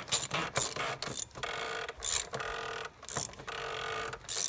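Ratchet wrench clicking in short runs, stroke after stroke, as it tightens the oil filter housing cap on a BMW N55 engine.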